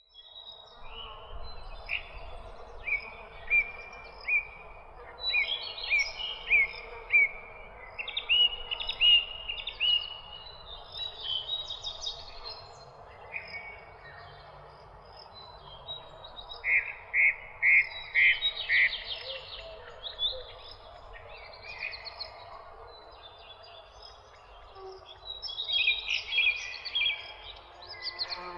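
Several songbirds chirping and singing in short overlapping phrases of quick repeated notes, over a steady background hiss of outdoor ambience.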